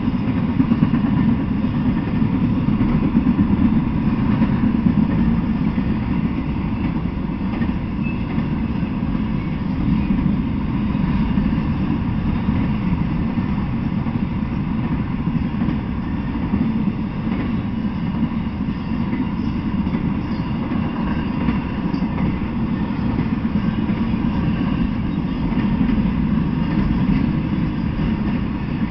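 Intermodal freight train rolling steadily past, its cars loaded with truck trailers and shipping containers: an even, low rumble of wheels on rail.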